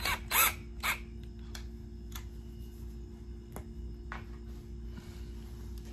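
Black+Decker 20V cordless drill run in a few short bursts in reverse, backing a screw out of a metal bed-frame rail, followed by a few light ticks as the metal rail is handled.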